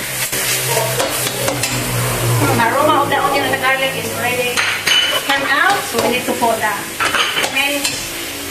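Onion and garlic sizzling in hot coconut oil in a wok, stirred with a spatula that scrapes and clicks against the pan.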